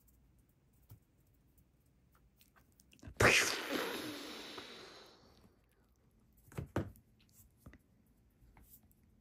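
Quiet handling noises: a sudden rush of rustling noise about three seconds in that fades away over about two seconds, then two quick light knocks a little later.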